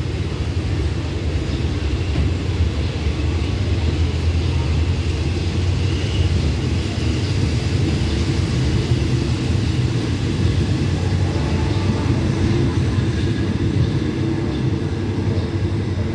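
Passenger coaches of a departing diesel-hauled rapid train rolling past the platform, a steady low rumble of wheels on rails. The last coach goes by near the end.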